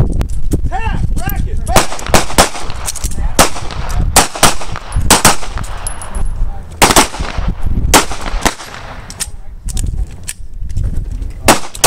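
Semi-automatic pistol shots from several shooters on a firing line, irregular and often two or three in quick succession, thinning out for a few seconds near the end.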